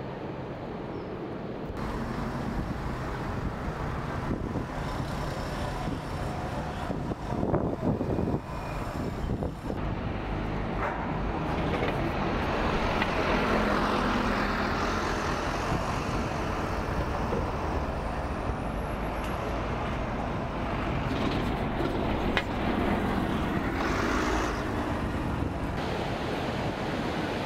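City street traffic: buses, vans and cars passing, a continuous rumbling wash of road noise that swells in the middle.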